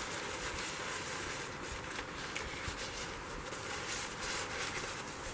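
Quiet background noise: a steady, even hiss with no distinct events.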